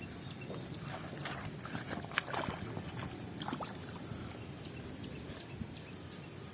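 Water sloshing and light splashing, with scattered small clicks and knocks, most of them in the first few seconds.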